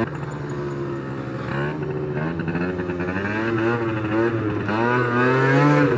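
Sachs Speedjet RS scooter engine running while riding, its pitch rising and falling with the throttle and growing louder through the second half.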